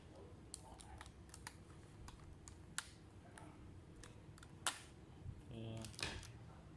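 Scattered small clicks and taps from hands and tools handling laptop parts, irregularly spaced, with the sharpest click about two-thirds of the way through.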